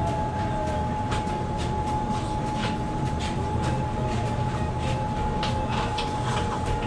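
Steady machinery hum with a low rumble and a constant high whine, from the plant running around the air-conditioning unit. Scattered light clicks and taps sound over it.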